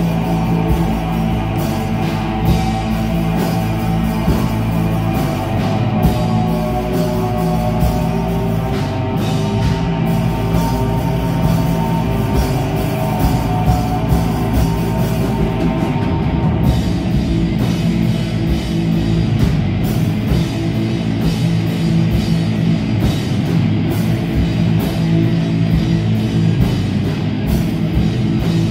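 Live rock band playing loud: several electric guitars over a drum kit. A little past halfway the upper part of the sound thins out while the band plays on.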